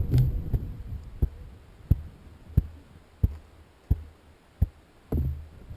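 A row of six evenly spaced low, muffled thumps, about one and a half a second, then a short louder low rumble near the end.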